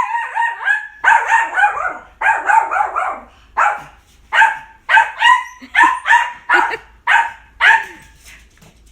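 A Maltipoo barking frantically in high-pitched yaps that come in rapid volleys, about a dozen bursts one after another, closer together in the second half. It is the alarm barking of a small dog agitated by the vacuum cleaner being touched.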